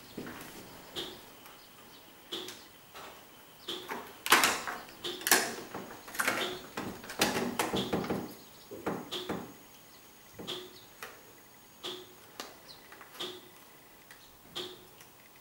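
A clear plastic food tub is handled, rustling and clattering, loudest from about four to nine seconds in. Under it a faint short sound repeats about every three-quarters of a second.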